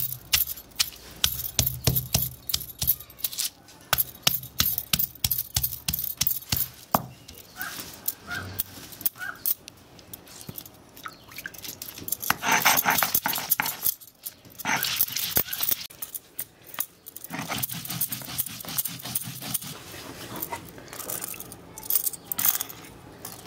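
Stone hand-grinder (batta) on a flat grinding stone (sil), pounding onion and spices: a long run of sharp knocks, then rough scraping strokes as the mixture is ground coarsely in the second half.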